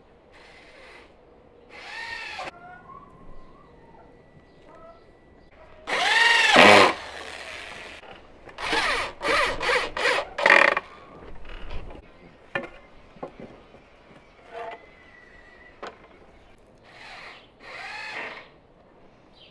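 Power drill worked against a wooden door frame in a series of short bursts, its motor pitch rising and falling back with each pull of the trigger. The longest and loudest burst comes about six seconds in, followed by a quick run of four or five short ones.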